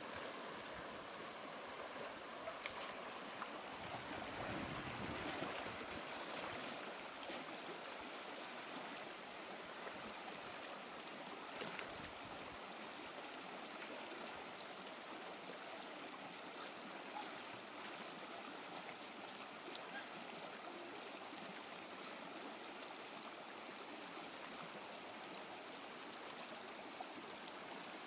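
Shallow rocky stream rushing steadily, with splashing from a person swimming and crawling through the water. It is a little louder around five seconds in.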